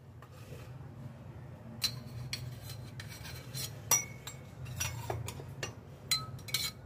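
Light metal clinks of a steel spoon tapping and scraping against a brass sev-press (gathiya machine) cylinder as its inside is oiled: several separate taps spread through, some with a short bright ring. A faint low hum runs underneath.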